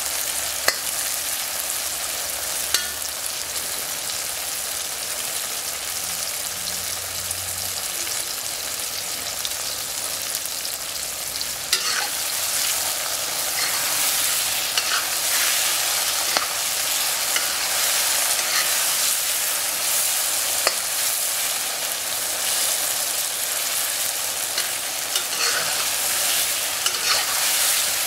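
Peppers, tomatoes and sausage sizzling in a wok, with a steady frying hiss, while a metal spatula scrapes and clicks against the pan as they are stirred. The clicks come more often in the second half.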